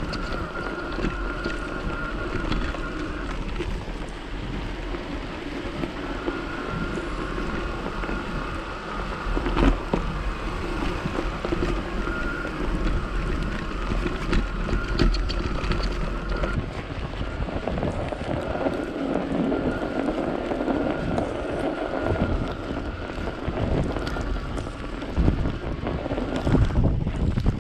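Strong wind buffeting the microphone with a deep, gusting rumble during a ride on an e-bike, over which a steady whine, likely the electric motor under assist, cuts in and out several times.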